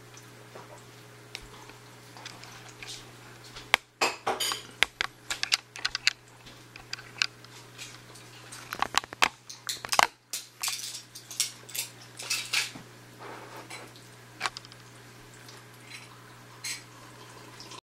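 A steady low hum, the aquarium's pump running, under bursts of irregular clattering and sharp clicks of small hard objects knocking together, heaviest from about four seconds in to about thirteen seconds in.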